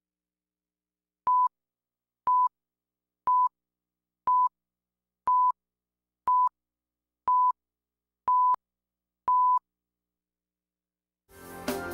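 Broadcast countdown leader beeps: nine short, identical tone beeps at the same pitch, one a second, over dead silence. Music begins near the end.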